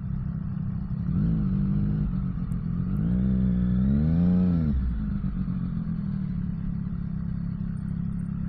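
Triumph Street Triple RS's 765 cc inline-three engine heard from the rider's seat while riding, running steadily with a short rise in revs a little over a second in and a longer climb and drop in revs between about three and five seconds in.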